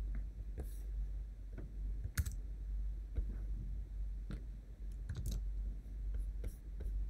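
Irregular computer mouse and keyboard clicks, a handful of separate sharp clicks spread over several seconds, the loudest about two seconds in.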